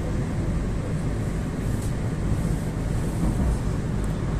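Moscow 2.0 metro train running at speed, heard inside the passenger car: a steady rumble of wheels on rail with a low, even hum.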